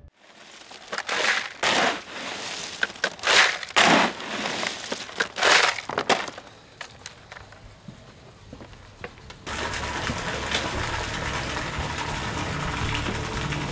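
Crushed ice dumped into a steel wheelbarrow, five or six loud crunching crashes in the first six seconds. After a short lull, a steady rush of splashing water with a low hum beneath it starts about nine and a half seconds in.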